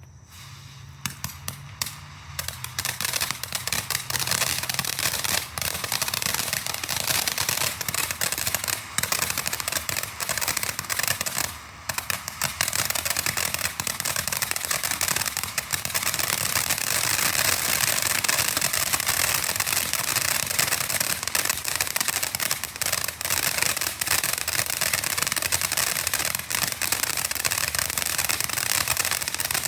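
TNT Fireworks Spooky Sparks fountain firework burning: a steady spray hiss thick with rapid crackling. It builds up over the first few seconds, dips briefly about twelve seconds in, and runs fuller through the second half.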